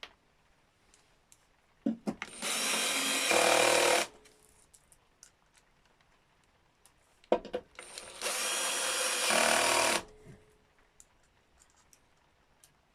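Cordless power screwdriver driving screws into the scooter's deck cover, running twice for a second and a half to two seconds each, with a short click just before each run.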